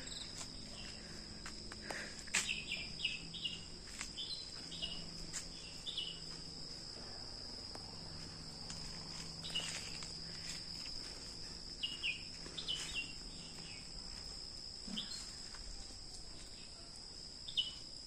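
A steady, high-pitched drone of insects, with short bird chirps in quick runs of three or four that recur several times.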